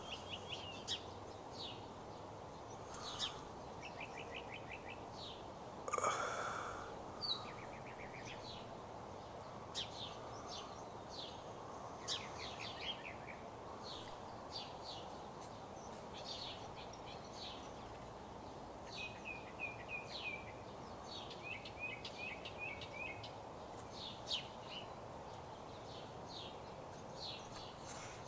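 Small birds chirping and trilling again and again over a steady, even background noise, an unexplained distant sound that seems to come from beyond the mountains. A louder short burst of noise comes about six seconds in.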